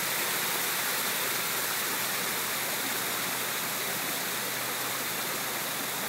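Pool waterfalls: sheets of water spilling off an artificial rock formation and splashing steadily into the pool.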